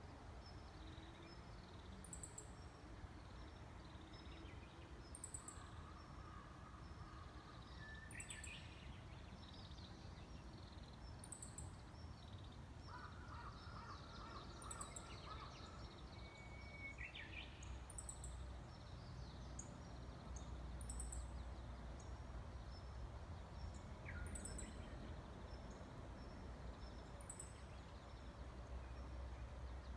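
Japanese bush warbler (uguisu) singing its hoo-hokekyo song several times, each a long whistle followed by a quick rising phrase, faint. A short high chirp repeats about every two seconds throughout.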